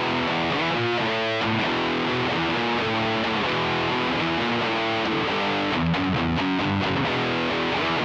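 Epiphone SG Special electric guitar played through a Fender Mustang Mini modeling amp set to a distorted metal tone, picking a continuous riff at a steady loudness. It is recorded direct from the amp's USB output.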